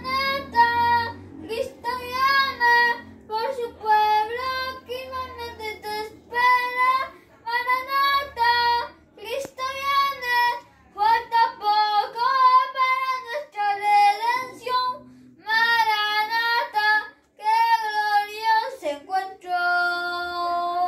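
A boy singing a Spanish hymn with a woman singing along with him.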